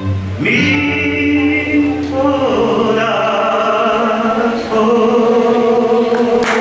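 A man singing into a microphone, holding long drawn-out notes, with a low guitar accompaniment underneath that drops out about two and a half seconds in, leaving the voice on its own.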